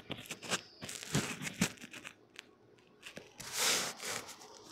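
Faint rustling and scattered clicks of handling noise, with a longer, louder rustle near the end.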